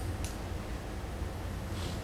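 Steady low hum, with two short soft hisses, one about a quarter second in and one near the end.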